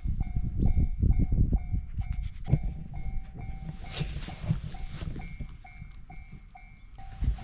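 Railroad crossing warning bell ringing its repeated ding about twice a second, steady throughout, over a dog's panting and low rumbling noise.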